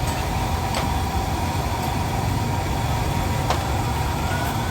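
Steady low rumble of street traffic and engines, with a couple of faint sharp clicks.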